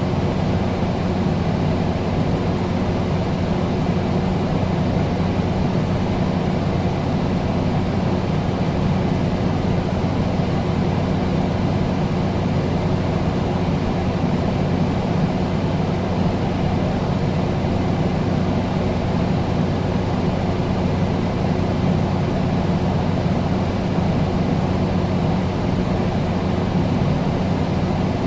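Air conditioner running steadily: a low, even hum under a constant rush of air, unchanging throughout.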